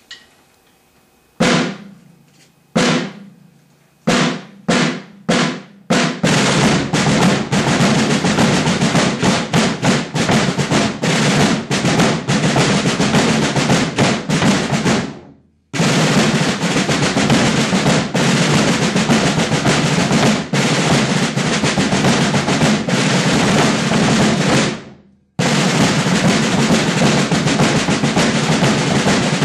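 A rudimental drum line of rope-tension snare drums and bass drums playing together. A few single strokes about a second apart come quicker and lead into dense rolls and strokes from the whole line, which stop abruptly twice, near the middle and a few seconds before the end, and pick up again each time.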